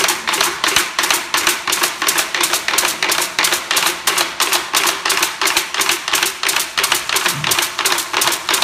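A stick tapping a steady, fast pulse of sharp clicks, about five a second, on a tall hand drum.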